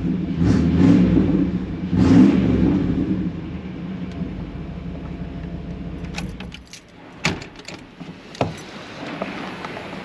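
1997 Chevy pickup's V6 idling through a straight-piped exhaust with a Magnaflow muffler, blipped twice in the first couple of seconds, then shut off about seven seconds in. A few sharp clicks and knocks follow.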